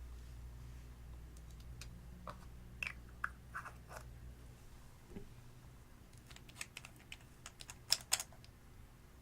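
Clear slime being worked by hand, making irregular sticky clicks and small popping crackles. A quick cluster of louder pops comes near the end.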